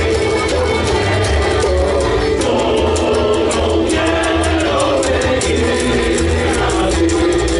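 A live band playing loud music on accordion, upright bass, washboard and banjo, with a sung lead vocal; a pulsing bass line underneath and a steady rhythmic scraping tick on top.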